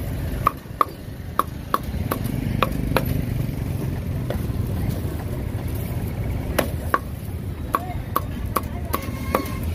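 Meat cleaver chopping roast poultry on a thick round wooden chopping block: about a dozen sharp knocks, often in quick pairs, several with a brief ring from the blade, and a pause in the middle. A steady low traffic rumble runs underneath.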